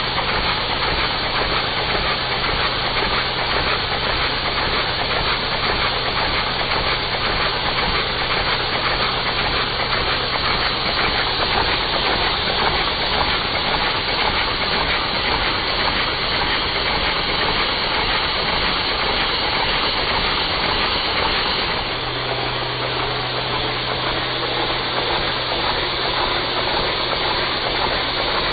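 Steady rushing hiss of air being sucked through a four-cylinder oscillating LEGO vacuum engine, over a low steady hum. About three quarters of the way through, the hiss eases slightly.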